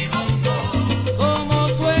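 Salsa band recording playing, with a walking bass line under repeated hand-percussion strikes and melodic lines above.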